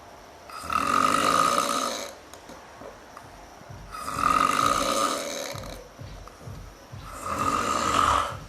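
Cartoon character snoring: three long, loud snores, one about every three seconds, with quieter breathing in the gaps.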